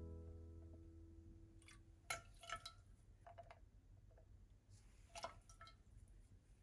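Near silence, with the last of a guitar note fading out at the start, then a few faint clinks and drips as soy sauce and mirin are measured with a metal spoon and poured into a small pan.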